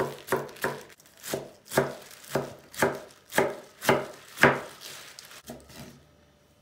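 Kitchen knife chopping fresh spinach on a wooden cutting board: a steady run of sharp strokes, about three a second at first and then about two a second, that stops about five seconds in.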